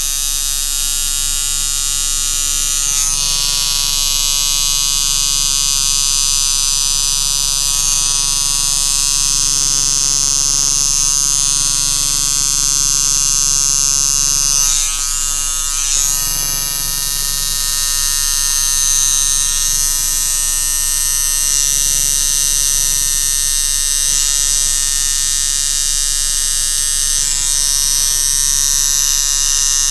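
Coil tattoo machine buzzing steadily as it lines a tattoo into skin, stopping briefly about halfway through before running on.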